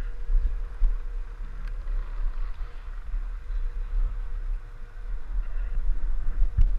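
Wind buffeting an action camera's microphone, a gusty low rumble that rises and falls, with a faint hiss of skis sliding on groomed snow and a few small clicks.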